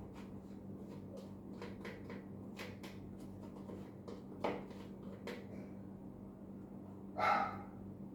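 Small clicks and knocks from kitchen items being handled, over a low steady hum, with one short dog bark near the end.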